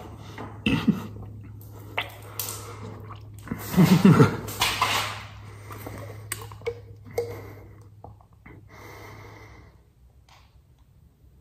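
A person coughing, gasping and sputtering between gulps from a bottle while his mouth burns from an extremely hot chili chip. The loudest fit of coughing comes about four seconds in, followed by quieter, heavy breathing.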